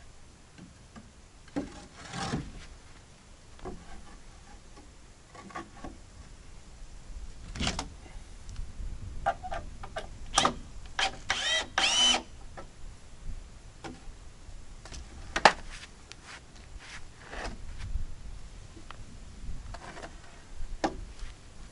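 Timber being handled and fitted on a wooden frame: scattered knocks and clatter, the loudest about fifteen seconds in. In the middle comes a short whir of a small power tool that bends in pitch, about eleven to twelve seconds in.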